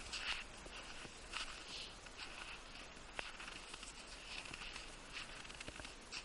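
Faint, scattered crunching of fresh snow underfoot: soft scuffs coming every second or so, with a small click about three seconds in.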